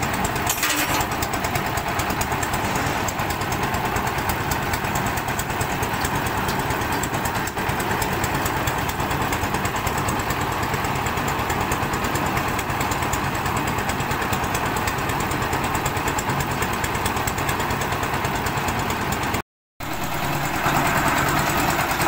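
Diesel engine of a concrete mixer running steadily with a fast, even knocking beat. The sound cuts out for a moment near the end, then the running resumes.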